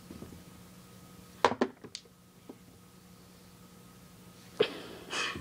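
Sharp clacks of a cue and balls on a mini tabletop pool table: a quick cluster of knocks about a second and a half in, a faint one a moment later, and another clack near the end.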